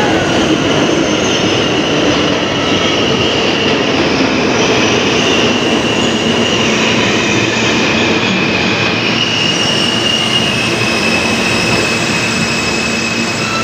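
New York City subway train pulling in alongside the platform: a loud, steady rumble of wheels on rail with long, high-pitched wheel squeal that shifts a little in pitch.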